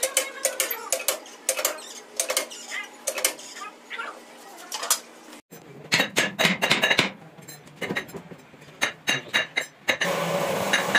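Irregular metallic clinks and knocks as steel cylinder sleeves and hydraulic-press tooling are handled and set on a six-cylinder diesel engine block. A steady machine noise comes in near the end.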